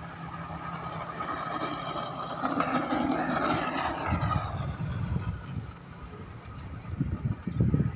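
Motor whine of a radio-controlled scale model CN-235 airplane rolling along the runway close past, loudest about three seconds in and then fading as it moves away. Low rumbling gusts come in over it near the end.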